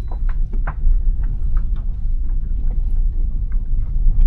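Taxi driving over a rough, rocky mountain road: a steady low rumble with irregular loud knocks and rattles as the vehicle jolts over stones.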